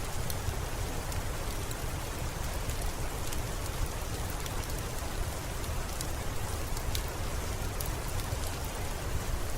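Steady rain with a low rumble underneath and scattered faint sharp clicks.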